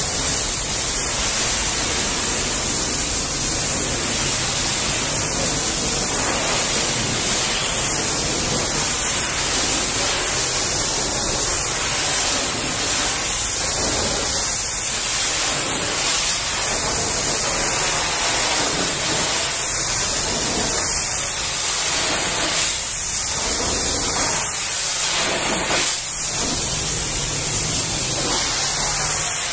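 High-pressure washer jet spraying water against a truck trailer's curtain-side tarpaulin and metal side panels, a steady unbroken hiss.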